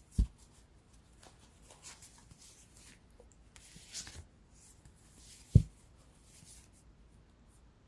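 Soft rustling of tarot cards being handled and slid against each other, with two low thumps, one just after the start and a louder one about five and a half seconds in.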